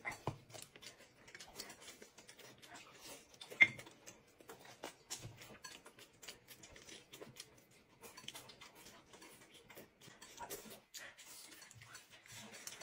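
Whole roast chicken being torn apart by hand and eaten: a scattering of small wet clicks, crackles and smacks, with one much louder sharp crack about three and a half seconds in.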